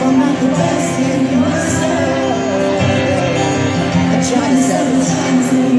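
Music with singing, steady and continuous.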